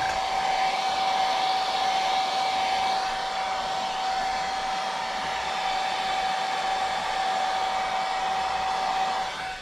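Handheld Conair hair dryer running steadily, a rush of air with a steady whine, blowing on freshly airbrushed paint on a fishing lure to dry the coat. It cuts off near the end.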